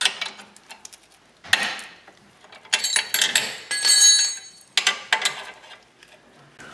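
Steel combination wrenches clinking and clanking against each other and the sway bar link as one 14 mm wrench is hooked onto the end of another to break the link nut free. Several bursts of metallic rattling, with the loudest, ringing clanks about three to four seconds in.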